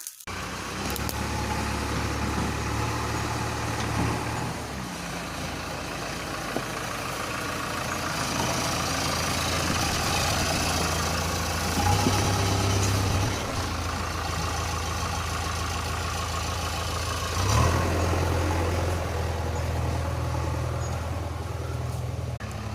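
A large engine running steadily with a low hum, swelling louder briefly about twelve seconds in and again near eighteen seconds.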